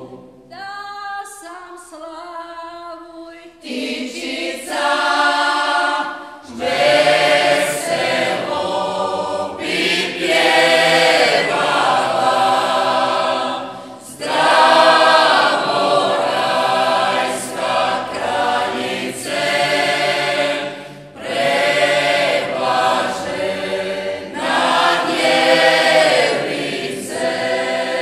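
Mixed folk vocal group singing a Marian hymn a cappella. A thin lead line opens the phrase, the full group comes in about four seconds in, and the singing then goes on in phrases with brief breaks between them.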